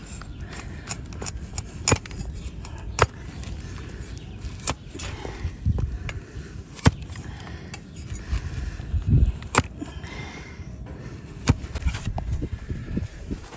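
A flat hoof-paring blade pressed down through a donkey's hoof wall against a wooden block, trimming off the horn. It makes irregular sharp cracks, several in quick succession near the start and then every second or two, with scraping in between.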